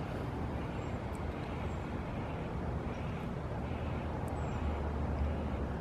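Steady low rumble of distant road traffic, swelling slightly about five seconds in.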